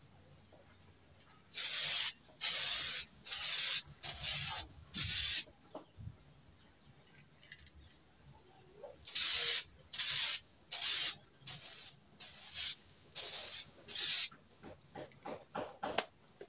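Aerosol spray-paint can hissing in short bursts of about half a second as a coat of paint is laid on evenly. There are five bursts in quick succession, a pause of a few seconds, then a run of about seven more, the last ones shorter and fainter.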